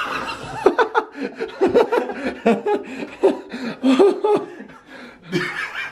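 A man laughing hard in short repeated bursts, bent over with the laughter.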